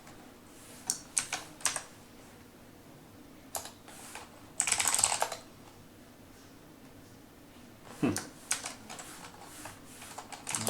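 Typing on a computer keyboard: short runs of keystrokes with pauses between, one denser run about halfway through.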